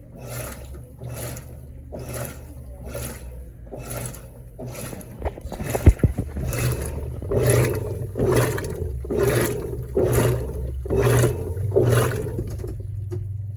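Electrolux LTE12 top-load washing machine agitating its wash load: water sloshing back and forth in a steady rhythm of about two swishes a second over the hum of the motor, growing louder about halfway through. A single sharp knock about six seconds in.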